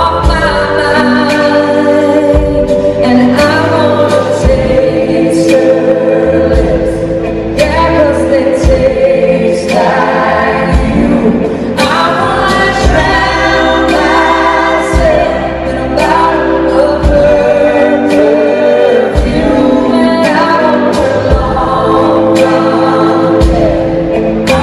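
Live band performance heard from within the audience: a country vocal group singing in harmony over drums, electric guitar, bass and keyboards, with a steady drum beat.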